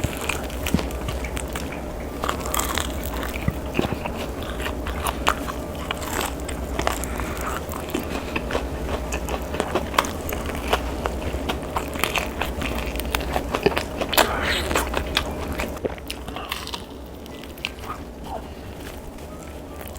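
Close-miked biting and chewing of crunchy food, with irregular crisp crunches and smacks that grow sparser and quieter near the end.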